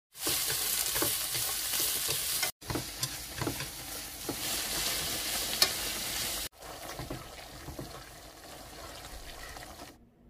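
Bacon, onion and mushroom slices sizzling in a frying pan as they are stirred with chopsticks, with scattered light clicks. The sizzle breaks off abruptly twice, is softer in its last stretch, and drops away near the end.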